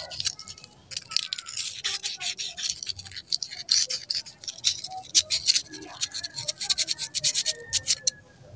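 Sandpaper scrubbed rapidly back and forth over the small inner metal part of a sticking igniter, sanding off rust so it turns freely again. Quick scratchy strokes that stop just before the end.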